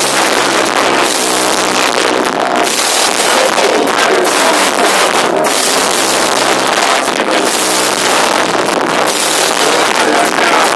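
Rock band playing live, loud and heavily distorted, the music overloading a small camera microphone into a harsh wash of noise.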